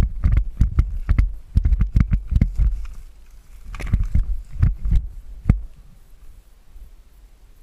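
Running footsteps thudding in a quick rhythm, about three a second, with the gear and body-worn camera jolting at each stride; they slow to a few steps and stop about five and a half seconds in.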